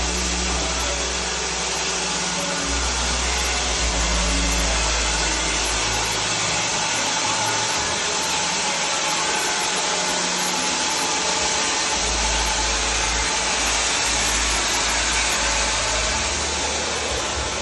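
Mobile sawmill running: a loud, steady machine noise, its low drone shifting every few seconds.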